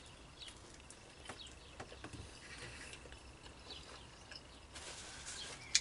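Quiet chewing of a mouthful of pizza, with small mouth clicks, and faint bird chirps in the background. A sharp click comes near the end.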